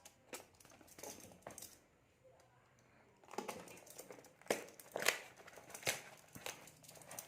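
A plastic courier parcel being torn open and its packaging crinkled and rustled by hand, a few scattered crackles at first, then busier and louder from about three seconds in.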